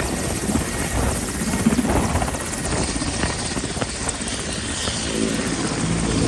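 Ghana Air Force Mil Mi-17 helicopter running on the ground with its main rotor turning: a steady turbine whine under the beat of the rotor blades.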